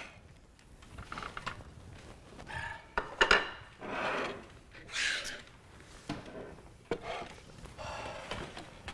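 Tableware being handled on a wooden dining table: plates and cutlery knocking, with rustling in between. The sharpest knocks come about three seconds in.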